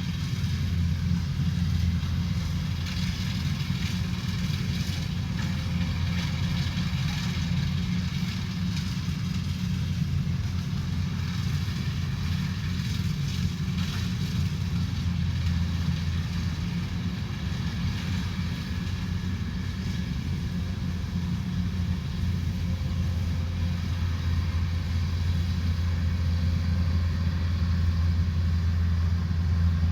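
Rice combine harvester running steadily: a constant low engine drone with a fainter, hissing mechanical noise above it.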